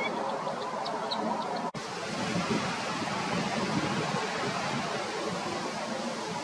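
Steady outdoor background noise with no clear single source, and a few faint short high bird calls in the first second or so.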